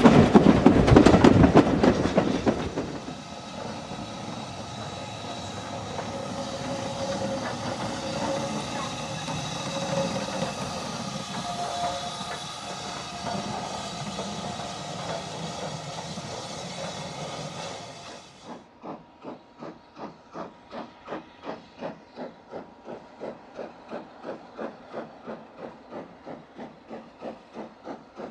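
Steam train running, loud, for the first few seconds. Then a Southern Railway U class 2-6-0 steam locomotive hisses steadily with faint whistling tones, until a sudden change about 18 seconds in. From there a steam locomotive's exhaust beats evenly, about two a second and quieter.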